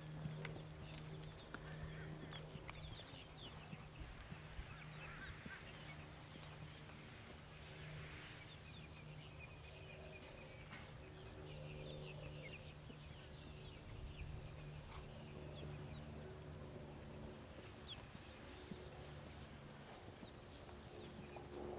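Faint hoofbeats of a Thoroughbred colt walking on a dirt lane, under a steady low hum and scattered high chirps.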